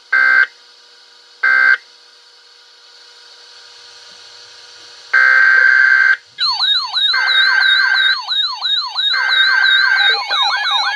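Emergency alert broadcast tones: three short data-tone bursts about a second apart, then after a few seconds' pause a longer burst, followed by a warbling, siren-like attention signal with more data bursts over it as the next alert begins.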